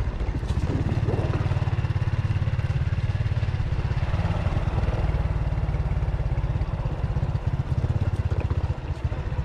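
Motorcycle engine running steadily while riding, a low, even drone of rapid firing pulses that dips briefly near the end.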